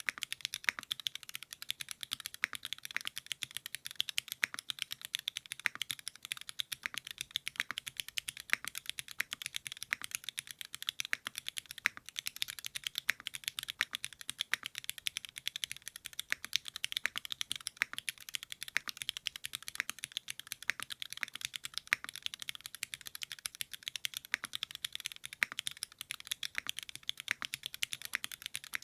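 Continuous fast typing on a Singakbd Rubrehaku custom mechanical keyboard: a dense, unbroken run of sharp, high keystroke clacks with little low thud.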